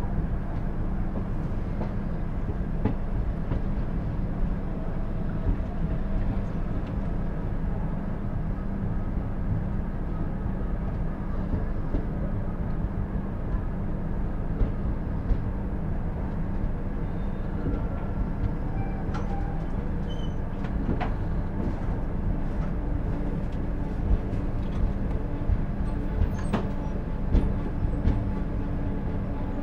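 Passenger train running: a continuous low rumble of wheels and carriage with scattered clicks and knocks. A steady hum runs underneath, and a second hum comes in near the end.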